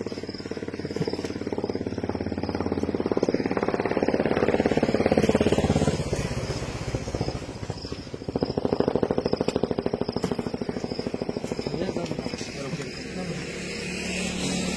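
A motor engine running with a rapid, even pulsing beat. It swells louder about four seconds in, drops off near six seconds, then comes up again around eight seconds.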